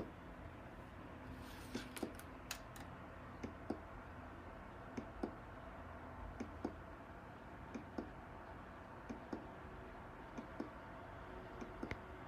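Light, sharp clicks at uneven intervals, often two close together, about twenty in all, over a faint steady low hum.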